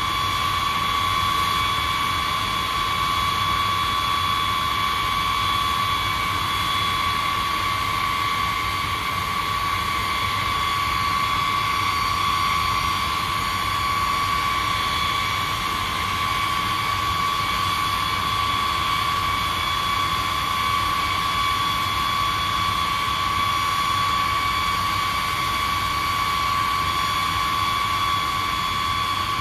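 B-52H bomber's eight TF33 turbofan engines running at low taxi power: a steady high whine over an even rushing noise.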